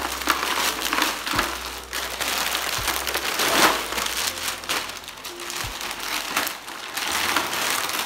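Wrapping paper crinkling and rustling in repeated bursts as a gift is torn open by hand, loudest about halfway through.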